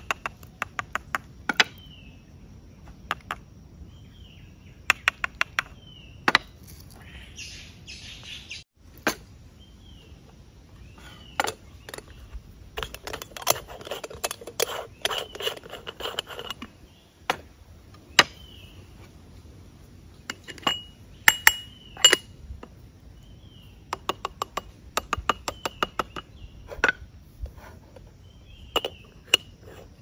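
Small birds repeatedly giving short, high chirps. Many sharp clicks and knocks are scattered among them, loudest in clusters about five seconds in and about twenty-one seconds in.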